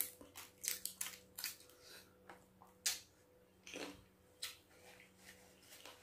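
A person eating crab meat: irregular chewing and sucking mouth smacks, a dozen or so short sharp clicks spread over the few seconds.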